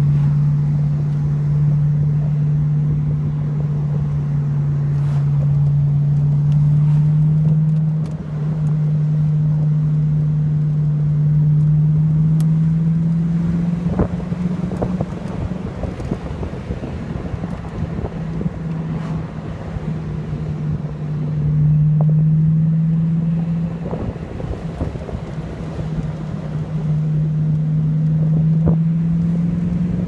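A car engine running, heard from inside the cabin, its low note creeping up as the car gains speed and dropping back a few times, with road and wind noise.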